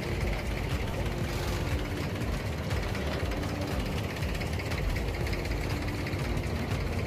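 Diesel engine of a wooden abra water taxi idling with a steady low rumble.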